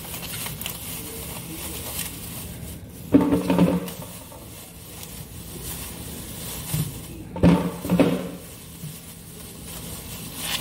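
Knocks and clunks of vegetables and kitchenware being handled while washing zucchini, in two short clusters about three and seven seconds in, over a faint steady hiss.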